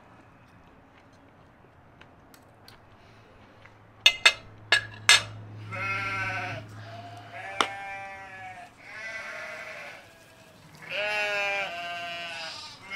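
A few sharp clicks about four seconds in, then several long, quavering animal calls in a row, like livestock bleating.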